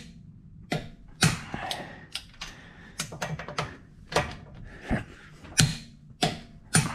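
A series of sharp metallic clicks and clacks, irregularly spaced about half a second to a second apart, from a click-type torque wrench and socket working a car wheel's lug nuts up to 80 ft-lb. The wrench breaking over marks each nut reaching its set torque.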